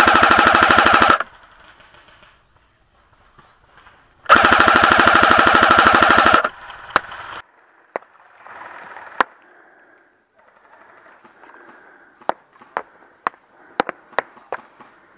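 Airsoft electric rifle firing full-auto: two long, loud bursts, the first ending about a second in and the second running for about two seconds in the middle. After them come a few scattered sharp snaps and clicks.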